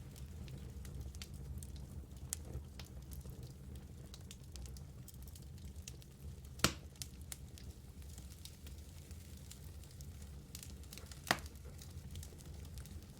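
Wood fire burning in a fireplace: a steady low rumble with many small crackles and two sharper, louder pops, about halfway through and near the end.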